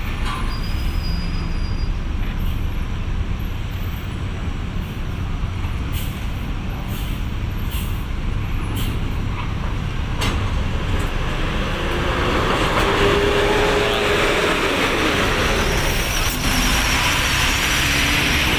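Diesel engines of a Mercedes-Benz coach bus and a Hino 500 tanker truck driving off a ferry ramp onto steel deck plates, with a few sharp metallic clanks. The sound grows louder in the second half as the truck comes down the ramp.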